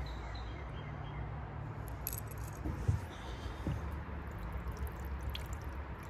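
A few light clicks of small plastic fountain hooks being handled, over a faint steady low rumble.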